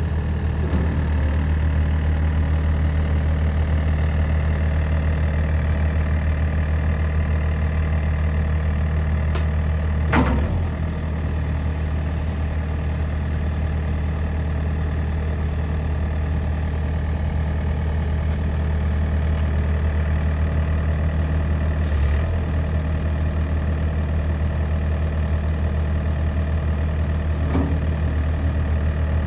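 Yanmar 4TNV98T 3.3-litre four-cylinder diesel of a skid steer loader running at a steady idle. A sharp click or knock cuts across it about ten seconds in, with smaller ones near 22 and 27 seconds.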